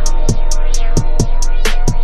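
Slowed hip hop beat with no vocals: a heavily boosted deep sub-bass drone under sustained synth notes, with quick, regular hi-hat ticks and periodic kick hits.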